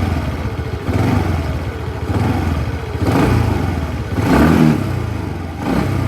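TVS Ntorq 125 scooter's single-cylinder engine idling and revved in several short throttle blips about a second apart. No clicking: the click the owner puts down to the auto choke does not come.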